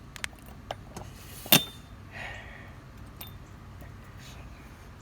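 A few light metallic clicks and one sharper clink about a second and a half in, with a short scraping rustle just after: a cotter pin being worked out of a riding mower's front axle.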